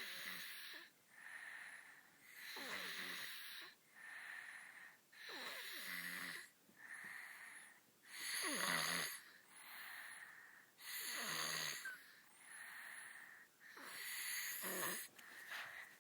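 Seventeen-month-old twin toddlers snoring softly in their sleep: mild snoring for them. The breaths come in a steady rhythm, a stronger one about every three seconds with fainter ones between.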